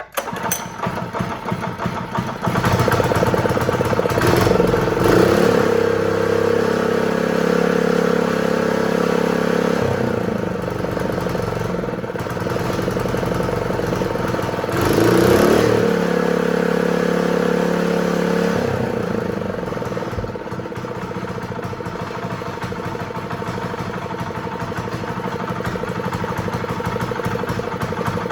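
Honda GX120 single-cylinder four-stroke engine running after a no-start fault, now firing on a replacement ignition coil. It revs up twice, about five seconds in and again around fifteen seconds, and settles to a steadier, lower speed for the last third.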